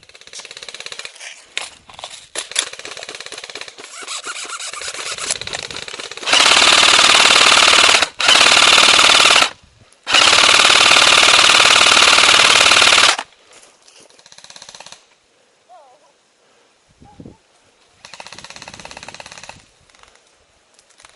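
Airsoft electric guns firing on full auto. There are moderate bursts over the first six seconds, then three long, loud bursts close by, the last about three seconds long, followed by two fainter bursts.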